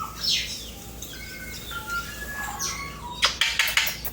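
Male eclectus parrot giving short chirps and whistled calls, some sliding in pitch, then a quick burst of wing flapping about three seconds in.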